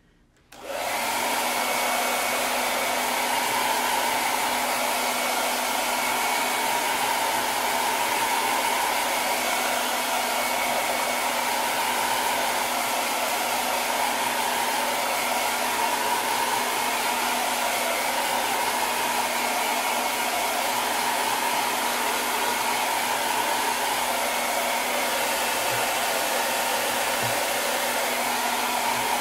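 Handheld hair dryer switching on just under a second in, then running steadily with an even rush of air, drying freshly applied paste on a craft sign.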